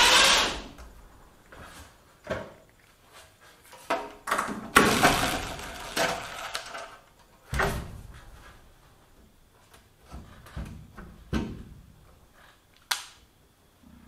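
Cordless drill/driver running in short spells, once at the start and again for about two seconds midway, driving screws through a metal fluorescent light fixture into a wooden roof truss. Sharp knocks and clatter from the fixture being handled follow.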